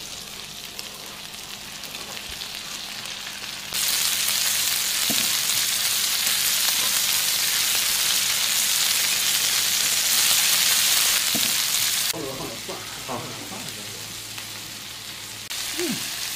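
Meat sizzling on a hot tabletop barbecue grill plate, a steady hiss. About four seconds in the sizzle abruptly becomes much louder, then drops back just as suddenly about twelve seconds in.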